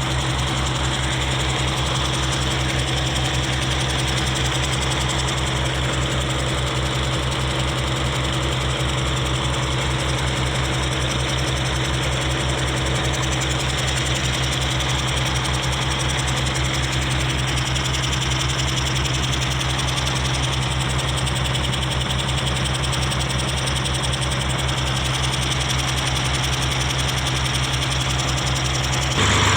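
Diesel engine of a drainage water pump running steadily with a fast, even low beat; the sound steps louder and changes in tone just before the end.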